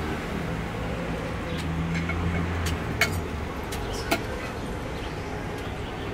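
Steady low hum of street traffic with a few sharp clinks of cutlery on a plate, the loudest about three and four seconds in.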